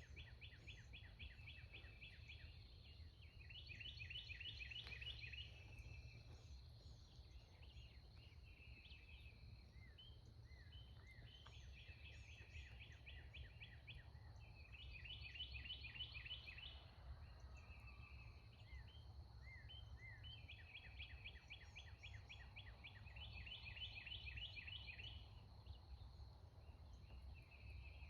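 Songbirds singing faintly: quick trilled phrases repeated every few seconds, over a steady low rumble.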